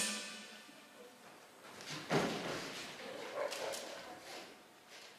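The tail of a music number dies away at the start. About two seconds in comes a single sharp thump with a brief noisy tail, then a few fainter knocks and scuffs.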